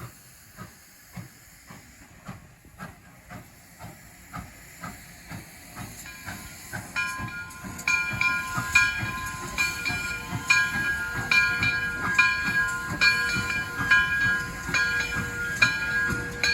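Steam locomotive drawing closer, its exhaust beats about two a second growing steadily louder. From about seven seconds in, the locomotive's bell rings over them in a steady rhythm.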